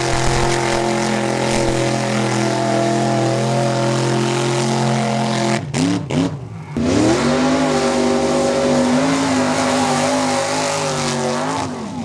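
Mud-race truck engines running at full throttle. One engine holds high, steady revs, then breaks off suddenly. After a short gap a second engine revs up, holds high, and drops off near the end.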